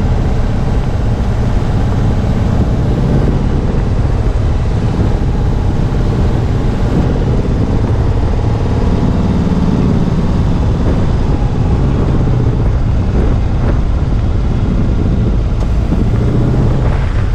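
Car engine running steadily, close to the microphone, with a heavy low rumble.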